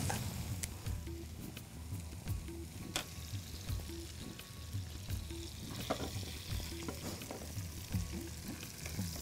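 Butter sizzling and bubbling in a small tadka pan over a gas flame as broken red Byadgi chilli pieces fry in it for a tempering, with a few sharp clicks of a utensil against the pan.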